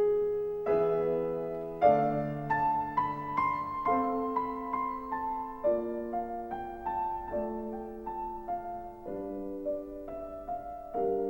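Slow piano music: soft chords and a melody, notes struck and left to ring, changing about once a second.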